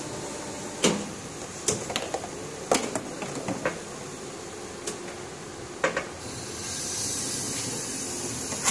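Sharp plastic clicks and knocks as a hollow blow-molded plastic lota is handled and trimmed by hand. A steady high hiss starts about six seconds in.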